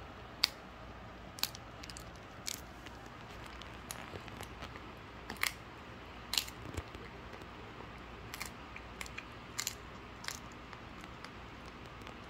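Shih Tzu gnawing a dried duck bone, its teeth cracking the hard bone in sharp, irregular crunches about every second or two.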